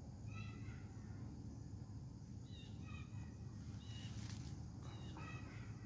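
Faint short bird calls, repeated in about five quick groups, over a low steady rumble.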